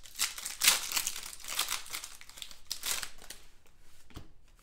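Trading-card pack wrapper being torn open and crinkled in the hands, crackling loudest in the first seconds, then quieter handling of the cards near the end.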